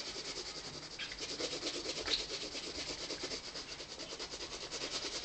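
Pencil shading on sketchbook paper: a steady scratchy rubbing of the pencil lead in quick, even back-and-forth strokes.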